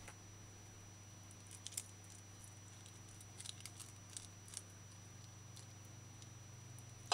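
Faint scattered clicks and small wet snips of a knife and fingers gutting a small sprat fish, over a low steady hum.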